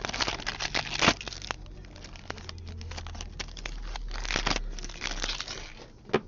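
Foil wrapper of an Upper Deck SP Authentic hockey card pack crinkling and tearing as it is ripped open by hand. It makes a rapid run of crackles, louder about a second in and again around four to five seconds, with one sharp crackle near the end.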